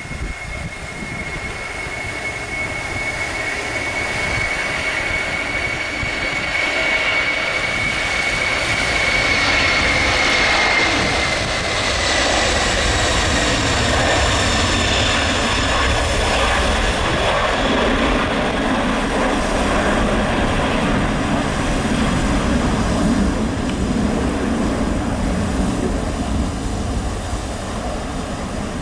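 Four jet engines of a Boeing 747-400 freighter at take-off power during its take-off roll and climb-out. A steady high whine over a heavy jet roar builds over the first several seconds, then holds loud; the whine drops slightly in pitch about ten seconds in as the jet passes, and a deeper rumble fills in during the second half.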